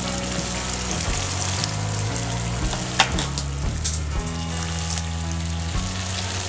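Butter chicken gravy bubbling and sizzling as it cooks in a non-stick kadai over a gas flame, stirred with a spatula at the start, with two sharp clicks about halfway. Background music with a low bass line plays underneath.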